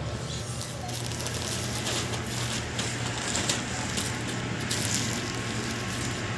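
Bubble-wrap packaging around a new motorcycle helmet visor crinkling and crackling as it is handled, over a steady low hum.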